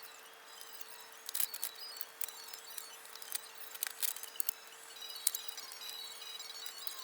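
Scattered small plastic clicks and rattles of wiring-harness connectors being handled and plugged in, over a faint steady hum.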